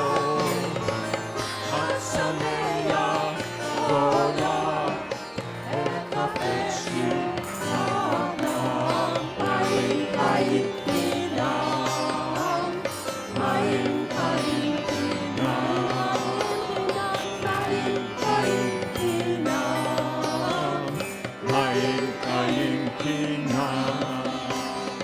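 Live worship band playing an instrumental passage: a melody over bass and a steady beat of percussion.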